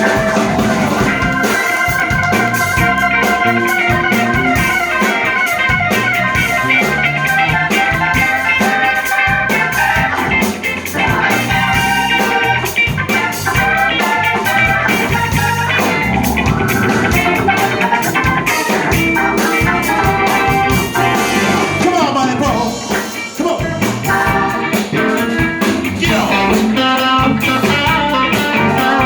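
A live blues band playing an instrumental break: a guitar lead over a drum kit.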